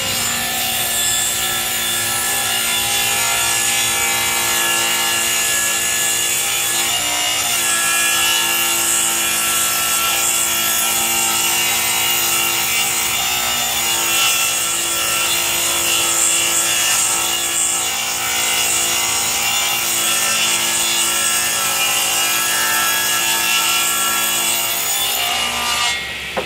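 Jobsite table saw ripping a long board lengthwise: the motor's steady whine under the noise of the blade cutting through wood. The sound falls away near the end as the cut finishes.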